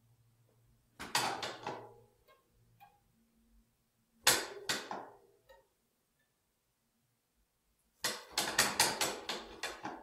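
Toy violin and toy piano played in three bursts of scratchy, clattering noise: one about a second in, a sharp one near the middle, and a run of quick strokes over the last two seconds.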